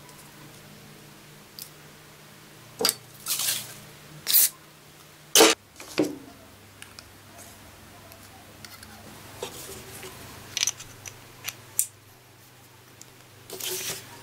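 Handling noise from the parts of a dismantled Peugeot 400W electric drill (a ball bearing, the armature and the chuck-and-gear assembly) as they are picked up, turned over and fitted together. It comes as scattered clicks, light knocks and short scraping rustles, the sharpest knock about five and a half seconds in, and a brief flurry of rustling and clicks near the end as the gear assembly goes into the plastic housing half. A faint low hum runs underneath.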